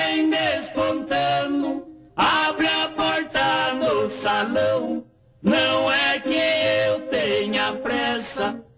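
Two men singing a caipira song in duet, with a viola strummed beneath. The voices come in three sung lines, with short breaks about two seconds and five seconds in.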